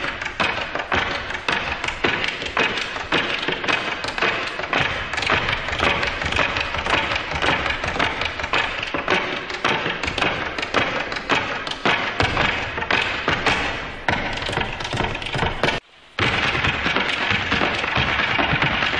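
Rapid tap-dance taps over music, a dense unbroken run of sharp strikes. The sound drops out for a split second near the end, then picks up again.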